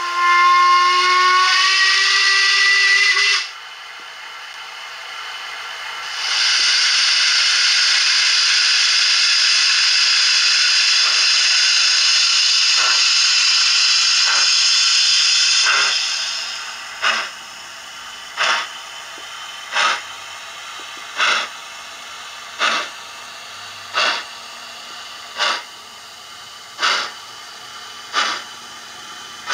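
Sound decoder of a Hornby OO-scale Class 5 steam locomotive model, through a bass-enhanced speaker: a whistle blast of about three seconds, rising slightly in pitch, then a long hiss of steam lasting about ten seconds, then slow, evenly spaced exhaust chuffs about every second and a half as the locomotive pulls away.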